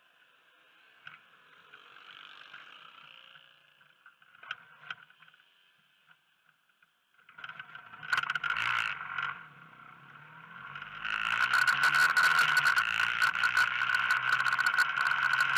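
A car passing close by about eight seconds in, then from about eleven seconds in a motor scooter pulling away and riding, its engine running under heavy wind buffeting on the microphone, the loudest part. Before that, only a low hiss with a few small knocks.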